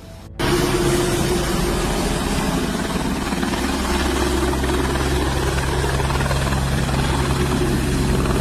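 Helicopter rotor and engine running steadily: a constant low hum under a rushing noise. It cuts in abruptly about half a second in.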